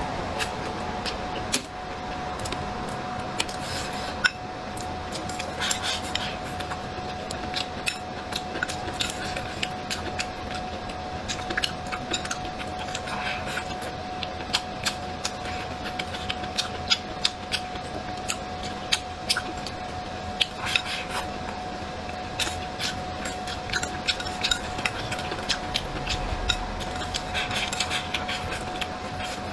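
Close-miked eating: chopsticks clicking and scraping against a ceramic bowl and mouthfuls of rice, greens and braised pork being chewed, with many short sharp clicks throughout.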